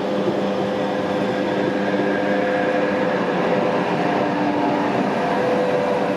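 Narrow-gauge (750 mm) passenger train of the Rasender Roland passing close by: steady rolling noise of the coaches' wheels on the rails, with a few held steady tones over it.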